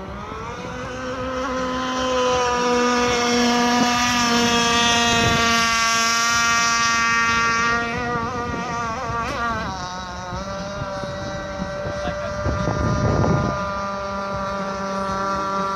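RC boat's Zenoah 26cc two-stroke gas engine running on the water. It winds up to high revs over the first two seconds and holds there, then throttles back about eight seconds in, the revs wavering before settling lower. A brief rush of noise comes about thirteen seconds in.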